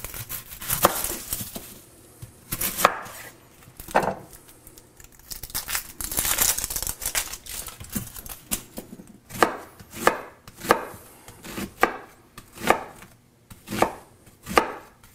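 Chef's knife cutting an onion on a bamboo cutting board: a few scattered cuts with rustling of the papery onion skin at about one and six seconds in, then steady chopping from about nine seconds in, roughly one and a half strokes a second.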